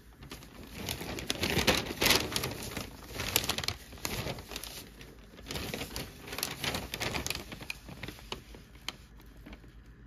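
Newspaper pages rustling and crinkling as a sheet of newsprint is turned over, loudest about two seconds in and dying away near the end.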